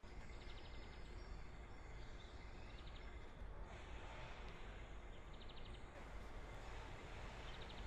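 Outdoor park ambience: a faint, steady low rumble with a bird's short, rapid trills repeating every two to three seconds.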